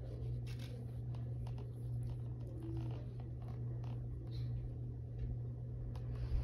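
Faint rustling with scattered small clicks and taps from hands handling a squirming puppy on a lap, over a steady low hum.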